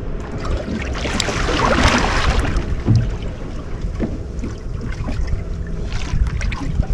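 Wind buffeting the microphone and water moving around a small boat, with a louder rush of noise between about one and two and a half seconds in.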